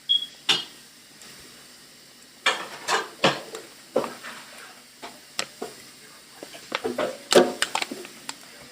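Eating sounds at a breakfast plate: irregular sharp clicks, crunches and scrapes of chewing and of utensils, coming in uneven clusters, densest near the end.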